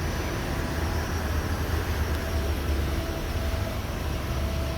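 Steady low mechanical rumble with a faint, even hum over it.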